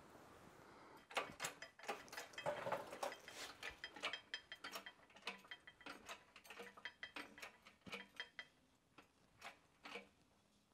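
Hydraulic bottle-jack shop press working a bending die on aluminum bracket stock: a fast, irregular run of sharp mechanical clicks and clacks, densest in the first few seconds and thinning to scattered clicks near the end.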